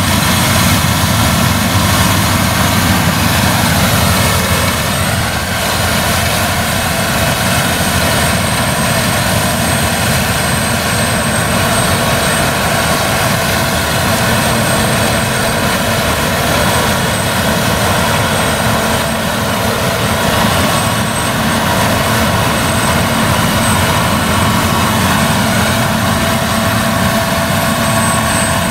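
Claas Lexion 770 TT tracked combine harvester running steadily under load while cutting and threshing rapeseed: a dense, even machine drone with a faint high whine over it.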